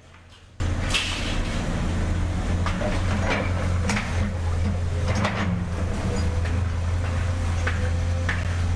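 Heavy machinery engine comes in abruptly about half a second in and runs at a steady low drone, with a handful of sharp metallic clanks and knocks over it.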